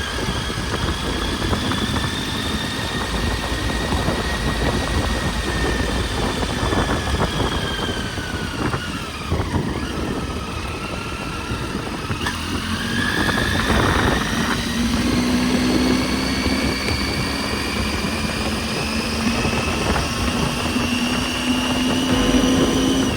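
Triumph Tiger 800 XC's three-cylinder engine running under way, with wind noise. Its pitch falls about ten seconds in as the bike slows, then climbs steadily as it speeds up again.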